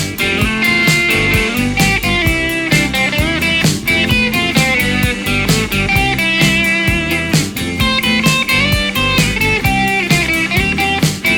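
Instrumental rock music with guitar over a steady drum beat.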